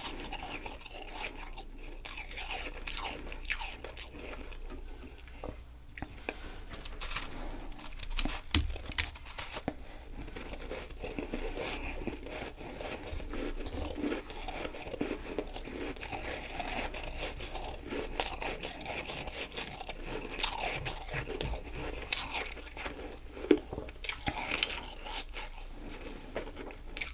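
Close-miked chewing and crunching of ice in the mouth: a steady crackle of small crunches with a few louder cracks. Near the end she bites into a packed ball of powdery ice.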